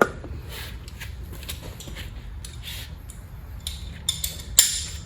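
Metal tools and lug bolts being handled: a sharp knock at the start, scattered light clicks and clinks, and a louder metallic clink with a brief ring near the end.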